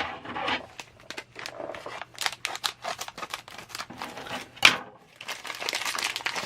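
A plastic blind-bag toy packet being torn open and crinkled by hand: irregular crinkling and tearing, with one sharper crack a little before five seconds in.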